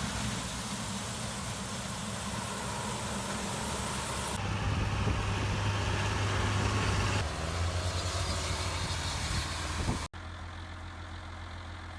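Farm harvest machinery engines running steadily, heard in several short cut clips; after about ten seconds a quieter, steady engine hum.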